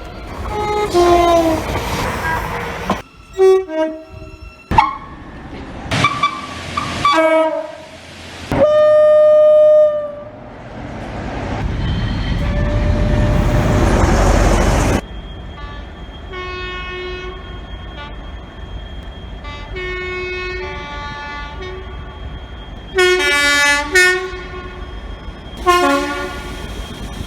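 British train horns sounding in quick succession, cut one after another: two-note blasts, short toots and one long steady note. In the middle a train runs past, its noise building and then stopping abruptly. Later toots sound over quieter rail running noise.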